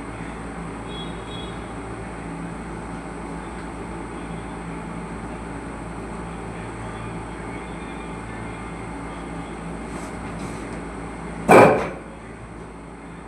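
Steady background noise with a faint hum, broken by a single loud thump near the end, after which the noise level drops a little.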